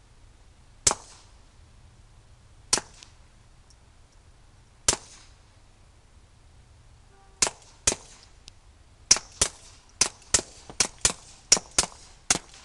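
Suppressed .22 LR shots from Walther P22 pistols fitted with stainless steel suppressors: three single shots about two seconds apart, then a pair, then a quick string of about nine shots in under three and a half seconds.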